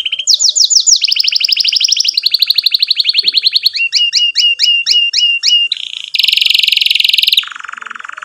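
Domestic canary singing a long song of trilled tours: fast runs of repeated whistled notes, then slower swooping notes about three a second, then a dense buzzy roll that drops lower in pitch near the end.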